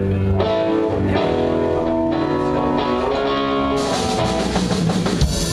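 Live band music with guitar to the fore over a drum kit, held chords ringing; a brighter, louder cymbal-like wash comes in about four seconds in.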